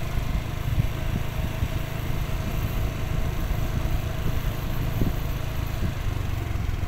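Small motor scooter engine running steadily at low riding speed, heard as a continuous low rumble.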